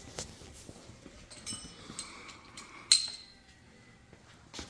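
Small metal parts clinking as a washer and axle nut are fitted onto a motorcycle's rear axle. There are a few light clicks and one sharper, ringing clink about three seconds in.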